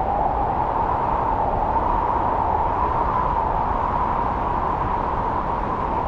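Strong wind blowing through snow-laden forest trees: a steady rushing that swells and eases slightly in pitch.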